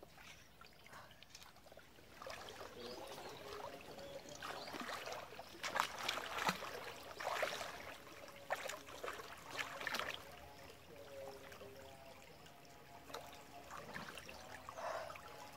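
Creek water splashing and sloshing as people wade and swim through it, with a cluster of sharper splashes in the middle.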